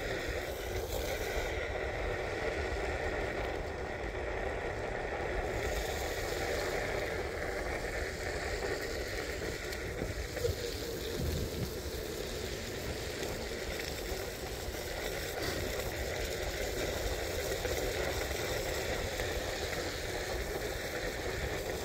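Steady rolling noise of wheels on wet pavement while riding along, with wind rushing over the microphone.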